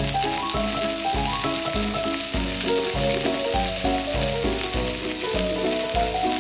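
A steady frying sizzle, added as a sound effect since the pan is a toy holding yarn noodles, laid over background music with a bass note that recurs about twice a second.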